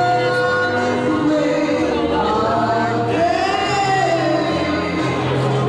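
A song with singing voices over a bass line, playing continuously.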